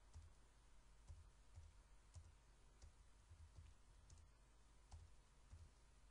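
Faint computer keyboard typing: about a dozen irregular keystroke clicks, each with a soft low thud, over a faint steady hum.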